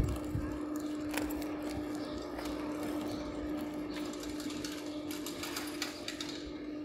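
Outdoor street ambience with a steady low mechanical hum and a few faint clicks.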